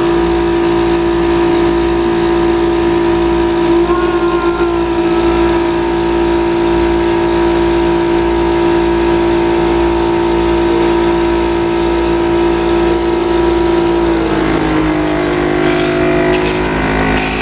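Electric motor of a respiratory-therapy machine running with a steady hum that dips slightly in pitch about fourteen seconds in.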